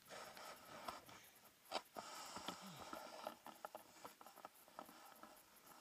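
Faint handling noise from a handheld camera pole: soft rustling of gloves, jacket and snow with scattered small clicks, one sharper click about two seconds in.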